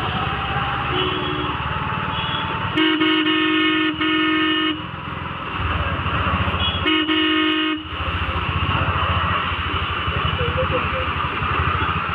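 Vehicle horn honking three times, two blasts back to back about three seconds in and another about seven seconds in, over a motorcycle engine running and a steady hiss of rain and traffic.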